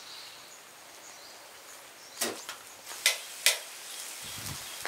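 Cooking over an open wood fire: a faint steady hiss, then three sharp clicks or cracks about two, three and three and a half seconds in.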